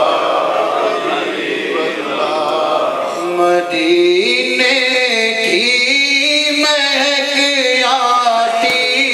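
A man singing a manqabat, an Islamic devotional poem, unaccompanied into a microphone. From about three seconds in, his voice comes through clearly in long held, ornamented notes.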